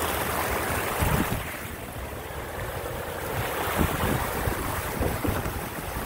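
Muddy floodwater rushing across the ground, a steady noise throughout, with wind buffeting the microphone in a few low thumps.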